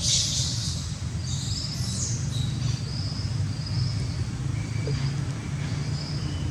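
Short high-pitched animal chirps repeating over a steady low hum, with a brief hiss-like burst at the start.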